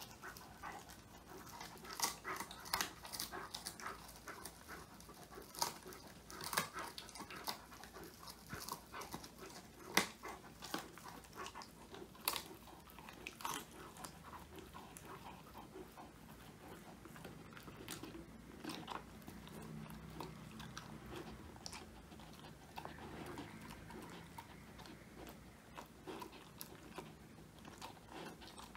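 Old English Sheepdog puppy crunching a whole-quail treat, bones cracking in many sharp crunches that come thick and fast at first and thin out in the second half. Near the end it licks crumbs off the floor.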